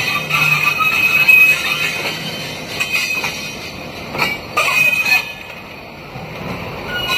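RGE-24 diesel shunting locomotive rolling slowly on the rails, its wheels squealing in a high tone, with a few sharp metallic knocks. The squeal drops away about five seconds in.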